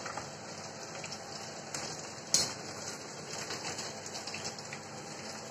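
Marinated chicken pieces deep-frying in hot oil in a wok, a steady crackling sizzle, with one sharp click a little over two seconds in.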